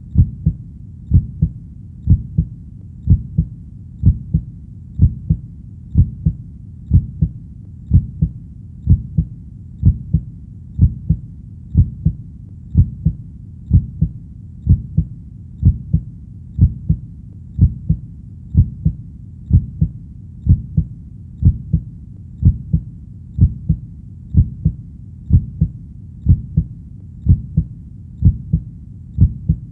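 A steady, slow heartbeat: low double thumps (lub-dub) repeating evenly at about one beat a second.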